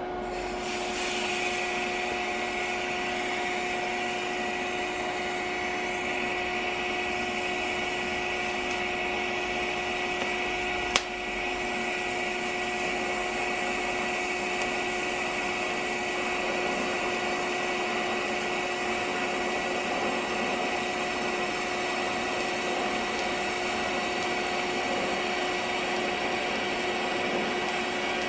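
DC TIG welding arc, a steady hissing buzz with a constant hum, striking up about a second in and holding on, with one sharp click about halfway through.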